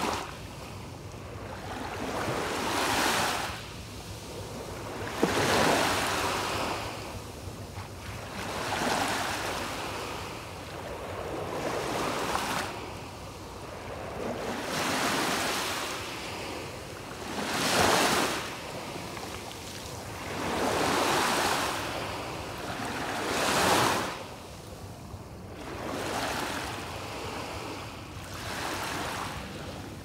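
Small waves breaking and washing up a sandy beach, a swelling then fading hiss of surf about every three seconds, two of them near the middle and about three-quarters through somewhat louder than the rest.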